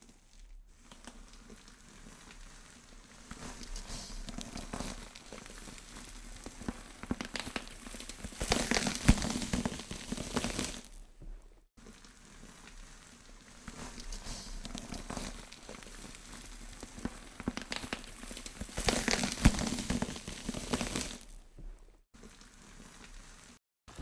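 Soft crackling and rustling noise with scattered clicks, swelling louder twice about ten seconds apart.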